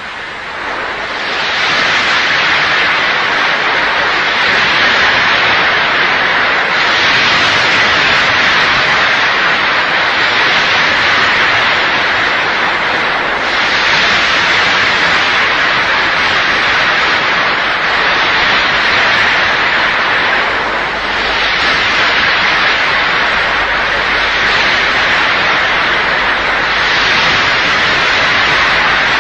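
Loud, steady rushing noise with no distinct tones, fading up over the first two seconds and shifting slightly in character every several seconds.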